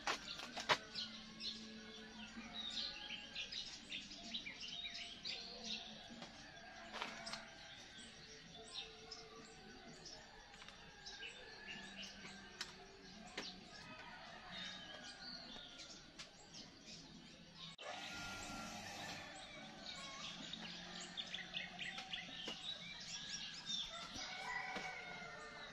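Several small birds chirping and calling, a busy mix of short high notes, with a brief hiss of noise about two-thirds of the way through.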